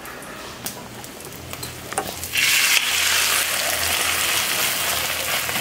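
Egg omelette frying on an iron tawa, turned with a spatula. A faint sizzle with a few light clicks from the spatula, then about two seconds in the sizzle turns loud and stays loud.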